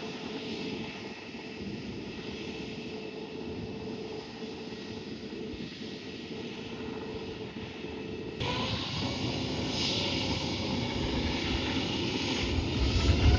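Airliner jet engines, a steady rushing drone with a faint whine. The sound changes abruptly about eight seconds in and grows louder near the end.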